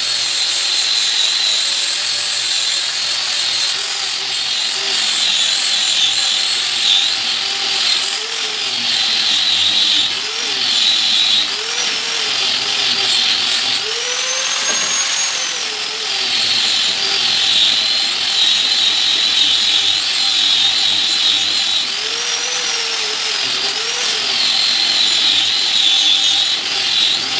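Handheld electric power tool working wood for an AC frame, its motor whine rising and falling in pitch over and over as it is loaded and eased off.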